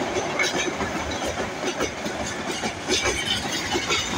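Express passenger train running on the rails, its wheels clattering over the rail joints with irregular clacks over a steady rumble.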